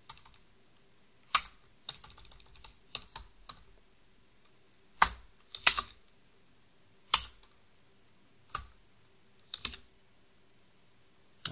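Computer keyboard typing: single sharp keystrokes and short quick runs of keys, with pauses of a second or more between them.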